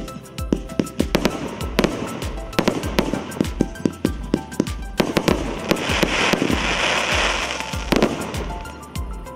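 A 120-shot Maxsem MC112 Twister fireworks cake (20, 25 and 30 mm shots) firing in rapid succession. Sharp launch thumps and bursting bangs come about three or four a second, with a spell of hissing about six seconds in.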